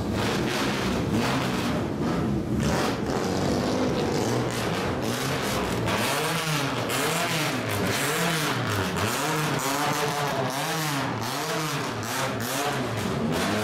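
Straight-piped exhausts of lowered classic Japanese cars driving slowly past one after another, loud throughout. From about six seconds in, one engine is revved in quick repeated throttle blips, its pitch rising and falling over and over.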